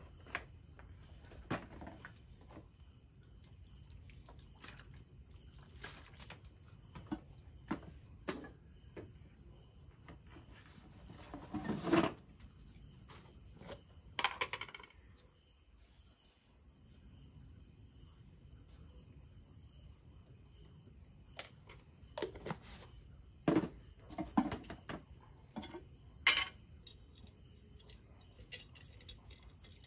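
A steady, high trilling insect chorus, with scattered clicks and knocks of containers, lids and a metal bowl being handled while raw meat is seasoned; the loudest knocks come about 12 and 14 seconds in and again around 23 to 26 seconds.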